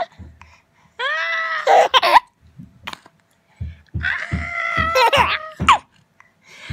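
Baby laughing and squealing: a high, rising squeal about a second in, then a longer run of chuckling laughs from about four seconds in.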